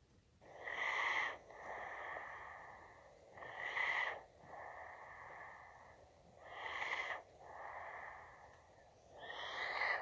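A person taking slow, deep breaths in and out, four times. Each breath is a short, louder intake followed by a longer, softer out-breath. The breathing is for a heart-and-lung check.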